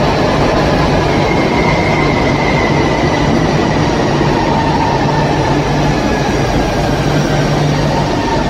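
Rodalies electric multiple-unit train running through an underground station platform, a steady rumble of wheels and motors with a faint high whine that slowly falls in pitch.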